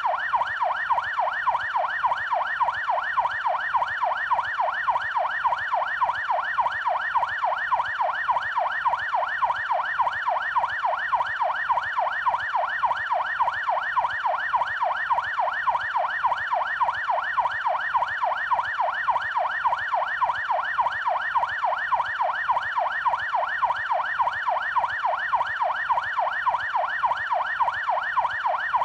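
Police siren on its yelp setting: a fast, steady wail sweeping up and down in pitch about three times a second.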